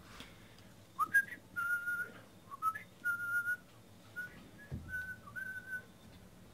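A person whistling a short tune: a string of held notes with small slides between them, starting about a second in and stopping near the end.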